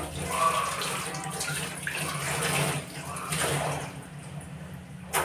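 Tap water running into a stainless steel sink as hands rinse under it, the splashing swelling and fading as the hands move through the stream. A short sharp knock comes near the end.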